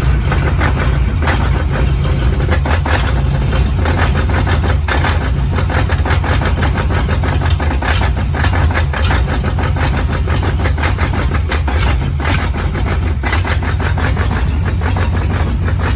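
Chevrolet Impala's engine idling with a rapid tapping knock. The tap sounds like a lifter but comes from a loose flywheel whose bolts had never been tightened.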